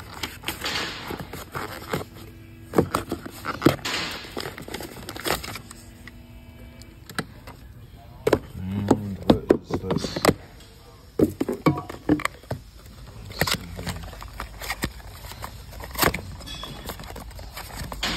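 Unboxing handling noise from a cardboard box, paper leaflets and a plastic packaging tray being handled: irregular rustling and scraping with many sharp clicks and knocks.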